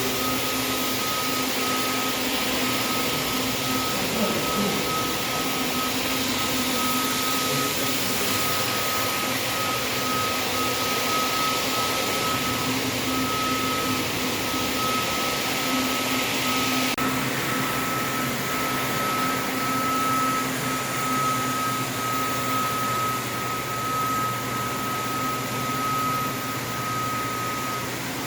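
Commercial floor-cleaning machine running steadily: a motor with a constant high whine and a low hum under a hiss. About two-thirds of the way through, the hiss suddenly drops while the motor keeps running.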